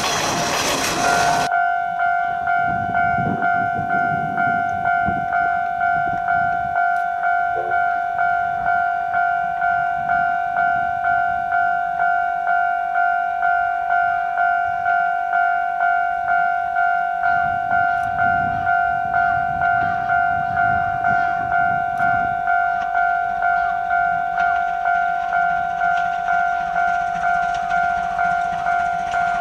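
A loud passing-train rush cuts off about a second in. Then an electronic railway level-crossing warning bell rings steadily at about one and a half dings a second, with the low rumble of the approaching C12 66 steam locomotive underneath.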